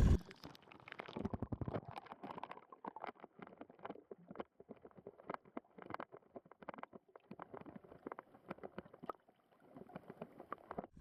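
Water lapping against the hull of a small fishing boat: faint, irregular slaps and clicks, with a short quiet gap near the end.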